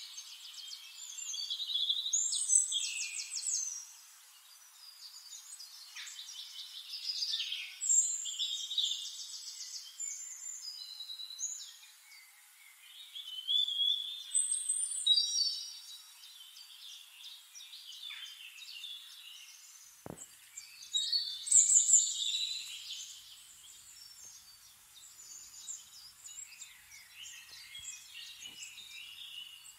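Small songbirds chirping and singing quick, high-pitched trills, in bursts every few seconds.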